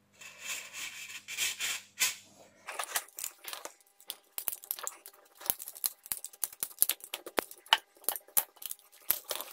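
Soft scraping and rustling, then a run of small sharp clicks and taps from about three seconds in: hands handling a plastic electric fly-swatter racket and working at its wiring with a utility knife.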